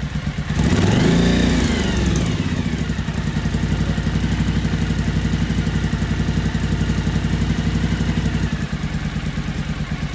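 Suzuki V-Strom DL1000's 90-degree V-twin engine running. It revs up and back down about a second in, then settles into a steady idle with an even pulsing beat.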